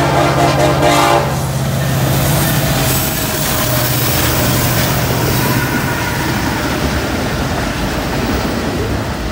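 Norfolk Southern freight train passing close by. The locomotive's air horn, a horn salute, sounds and cuts off about a second in. The diesel locomotives' engines then drone past, and the freight cars follow with a steady rumble and rattle of wheels on rail.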